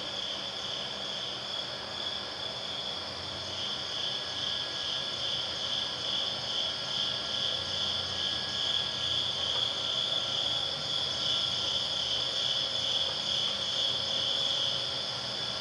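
A steady, high-pitched, cricket-like chirring from an electronic performance soundscape, growing a little louder after about three seconds.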